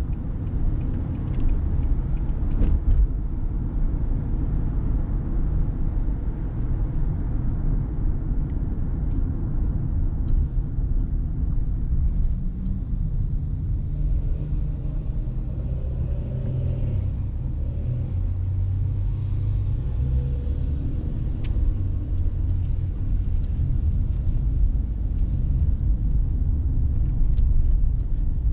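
Car driving along, a steady low rumble of engine and road noise.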